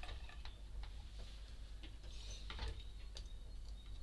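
A few faint scattered taps and soft knocks of a knife and tomato halves being handled and cut on a wooden cutting board.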